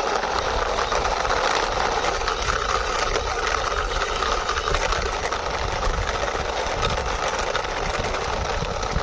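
Toy ambulance being driven along by hand: a steady, engine-like rattling whir that holds an even level throughout.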